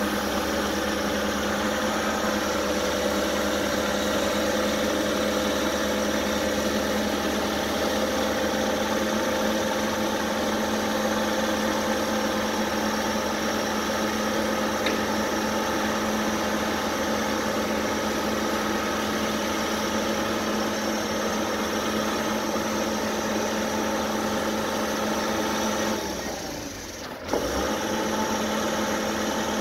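Diesel engine of a tracked excavator running steadily at a constant speed while it lowers a load, with a brief drop in level near the end.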